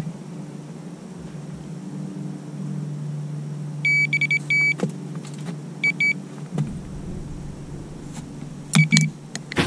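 Electronic bite alarm on a ledgered rod sounding in short bursts of beeps as the line is pulled through it and the hanger indicator moves: a fish taking the bait. There is a quick run of beeps about four seconds in, two more about two seconds later, and another near the end.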